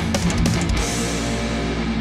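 Heavy metal music with distorted electric guitars and drums. Drum hits fall evenly through the first second, then a cymbal crash comes in over a held chord.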